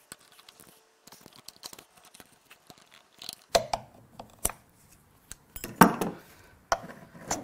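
Hand tools and metal parts of an NP246 transfer case clicking and clanking as a part is worked loose, with a few louder knocks between about three and a half and six seconds in.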